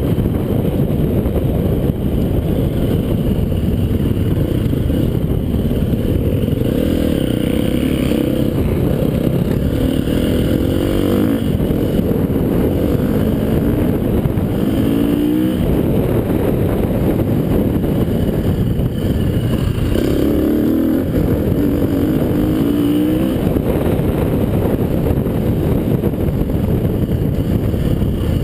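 KTM 350 four-stroke single-cylinder enduro bike engine pulling hard under load, the revs climbing and dropping with throttle and gear changes, with a rising run through the revs about halfway through. Heavy wind rush on the microphone at speed.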